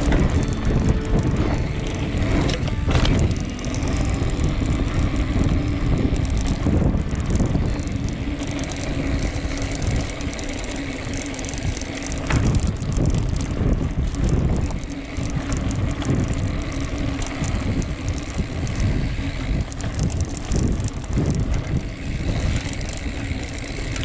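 Mountain bike ridden over a bumpy dirt track, its frame and fork rattling and jolting, with wind buffeting the microphone.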